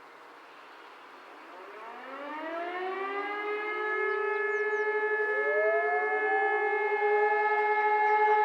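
Several fire sirens, mostly E57 electromechanical motor sirens, wind up one after another from about a second and a half in. Each rises in pitch and settles into a steady wail, and the sound grows louder as more sirens join. This is the start of a 'Feueralarm' test signal.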